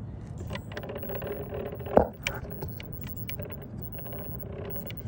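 Small mechanical clicks and ticks from handling around an RC helicopter's main gear and drivetrain, with one loud sharp click about two seconds in, over a faint steady hum.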